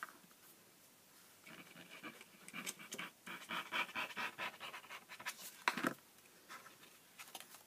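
Foam-tipped glue bottle dabbed and rubbed along a strip of cardstock, a soft, fluttering scratchy rubbing, followed by a light knock about two-thirds through as the bottle is set down.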